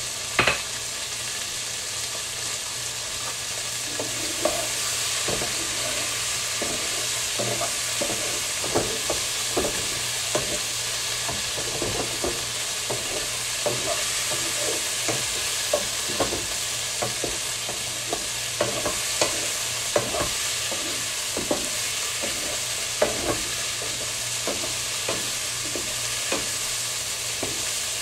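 Food sizzling in a pan while a spatula stirs it, knocking and scraping against the pan at an uneven pace, with one sharp clack right at the start.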